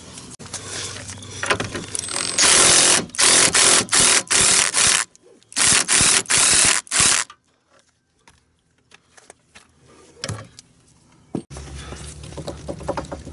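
Cordless impact wrench running in a series of short trigger bursts, rattling a loosened nut off a leaf spring bolt. Scattered clicks of metal parts follow, and a low steady hum comes in near the end.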